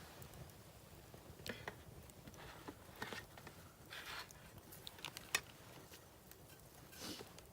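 Faint, irregular sharp clicks and a few brief rustling scrapes, with one louder click about five seconds in.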